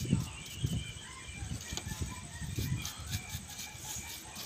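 Bristle brush sweeping moulding sand off freshly cast metal pieces in a sand mould, in a run of soft repeated strokes, with a sharp click about two seconds in. Faint high chirping sounds in the background.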